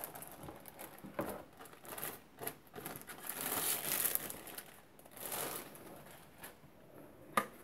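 Clear plastic wrapping crinkling and rustling as a router is pulled out of it and the film is handled, loudest about halfway through. There is one sharp tap near the end.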